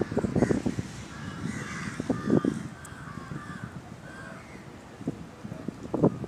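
Crows cawing repeatedly, with low rumbling thumps on the microphone, the loudest about half a second in, around two and a half seconds in, and near the end.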